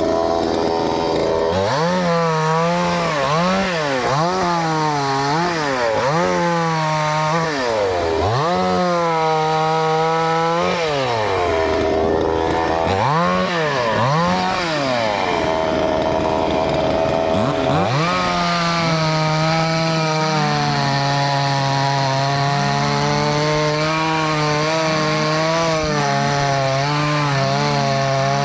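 Two-stroke chainsaw idling, then revved up and down again and again, roughly once every one to two seconds. From about two-thirds of the way in it is held at high speed, its pitch dipping a little now and then as it cuts into wood.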